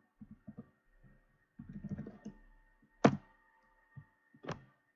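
Computer keyboard typing: two quick runs of key clicks, then a louder single key strike about three seconds in and another about a second and a half later.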